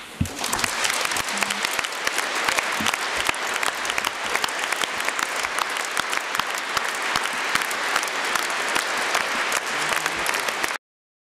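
Audience applauding: dense, steady clapping that starts at once and cuts off suddenly near the end.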